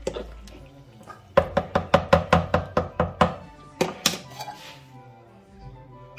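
A wooden spoon knocking against a plastic bucket of cooked rice and chicken: a quick run of about a dozen sharp knocks, about five a second, then two more, over background music.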